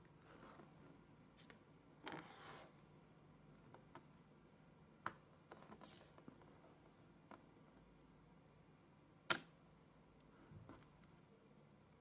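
Small magnet balls clicking and snapping together as they are handled and set down, with short rustling, scraping passages between the clicks. One sharp, loud snap comes about two-thirds of the way in.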